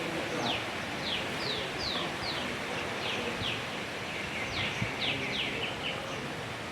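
A bird calling outdoors: a run of about a dozen quick whistled notes, each sliding downward, roughly two a second, over steady background noise.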